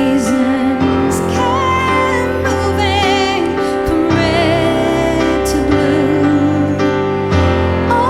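Slow, tender music: a wavering melody held over sustained chords, laced with quick high warbling figures from birdsong tuned into an instrument.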